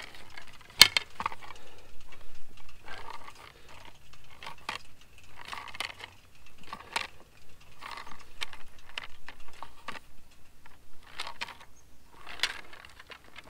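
Metal antenna tube being worked by hand to straighten a bend, giving irregular clanks, scrapes and rattles, with one sharp knock about a second in.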